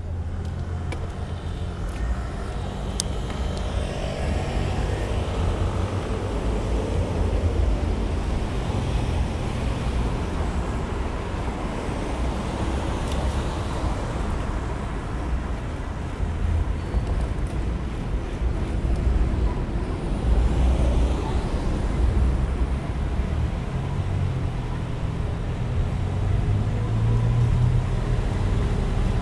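City road traffic heard from a moving bicycle: passing cars' engines and tyres over a steady low rumble.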